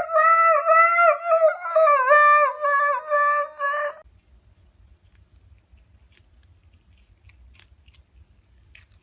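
A dog giving a long, drawn-out whining howl that wavers up and down in pitch, as if answering back, and stopping about four seconds in. After it only a few faint clicks are heard.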